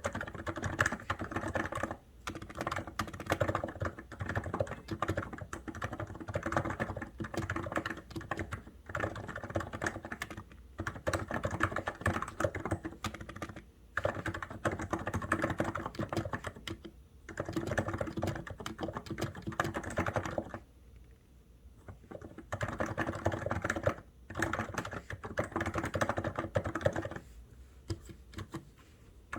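Steady, fast typing on a COX Endeavour keyboard: a dense run of key clicks that stops in short breaks a few times and in one longer pause about two-thirds of the way through.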